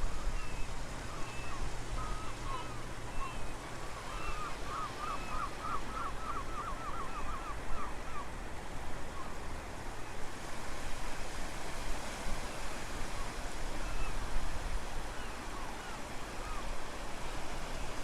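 Wind buffeting the microphone over the steady rush of surf, with a bird chirping on and off and a quick run of about a dozen chirps a few seconds in.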